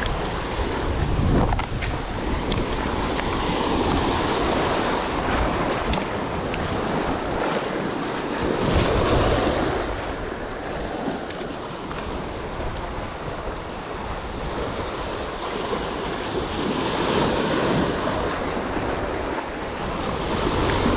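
Small sea waves breaking and washing up over a rocky shore, the surf swelling louder and fading away every several seconds, with wind buffeting the microphone.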